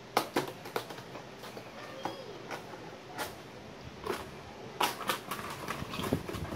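Cardboard packaging being handled: a corrugated inner box slid out of its printed cardboard sleeve and opened, with scattered taps, scrapes and rustles and a few sharper knocks from about the fifth second.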